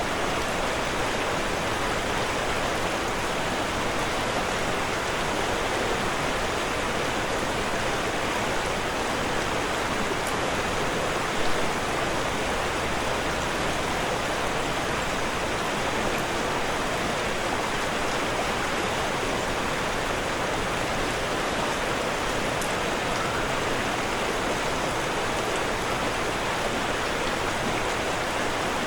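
Waterfall: water falling and rushing in a steady, unbroken hiss, even throughout.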